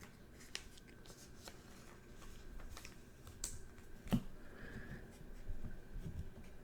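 Trading cards being handled and slid through the hand: faint scattered clicks and rustles, with one sharper snap about four seconds in.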